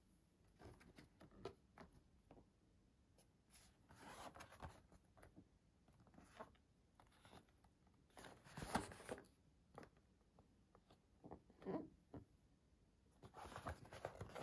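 Hands handling a cardboard box: scattered light scrapes and rustles of the cardboard, loudest about nine seconds in as the box is turned.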